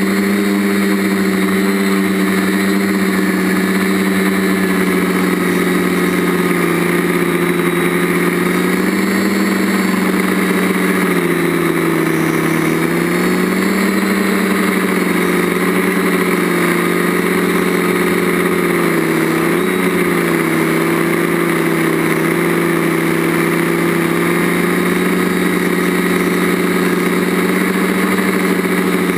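Onboard sound of a TBS Discovery quadcopter's DJI motors and propellers, a loud steady hum. Its pitch dips and comes back up a few times as the throttle changes.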